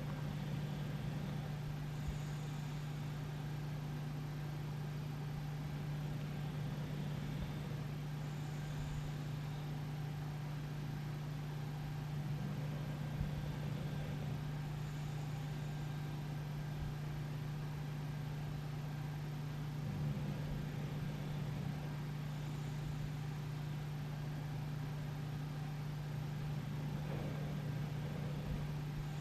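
Quiet house room tone with a steady low hum. A faint soft hiss recurs about every six seconds: the slow breathing of a sleeping English bulldog.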